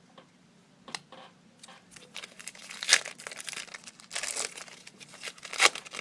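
Trading card pack wrapper being crinkled and torn open by hand, a run of crackling rustles that starts sparse and turns busy about two seconds in, loudest near the middle and again near the end.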